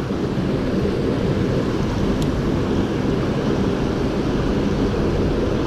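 Steady rushing of a fast-moving stream current, a loud, even noise with no break.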